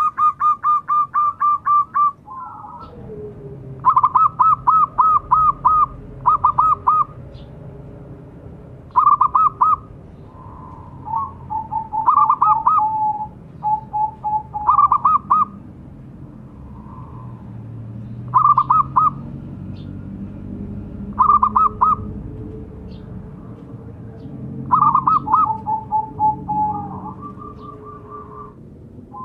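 Zebra dove (perkutut) cooing: a phrase of quick staccato notes every few seconds, some phrases ending in a lower drawn-out note.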